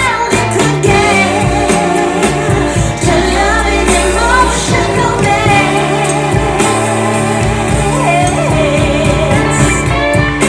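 Pop song with a lead singer's voice over a full backing band.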